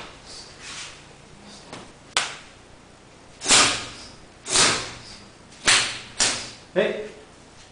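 Open-hand slaps and strikes on a karateka's bare back, shoulders and arms during Sanchin kitae conditioning: about six sharp smacks at irregular intervals. Mixed in are forceful hissing exhalations of the Sanchin breathing and a short grunt with the last hit.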